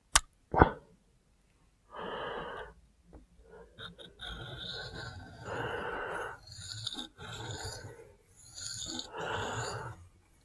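Two sharp clicks at the start, then a CruWear steel knife blade (Spyderco Shaman) drawn freehand across a wet whetstone in about five slow strokes, each a soft gritty rasp about a second long, with short pauses between.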